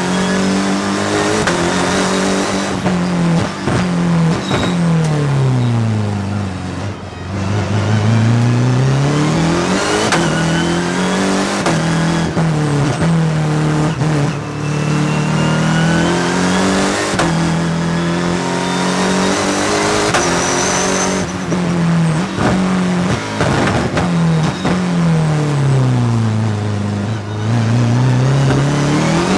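Twin-turbo BMW Motorsport V8 of a race-prepared E36 M3 hill-climb car at full race pace. The revs repeatedly drop, deepest twice, and climb again as the car brakes into corners and powers out of them.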